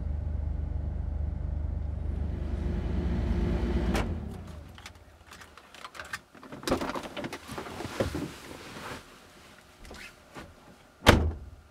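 A steady low rumble for about four seconds. Then, inside a car, scattered small clicks and knocks of things being handled in the cabin, and one loud thunk near the end.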